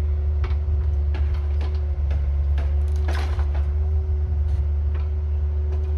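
Mini excavator engine running steadily with a low hum, with scattered knocks and clicks as the bucket works at the boards of a wooden coop frame. A longer, rougher scrape or creak comes about three seconds in.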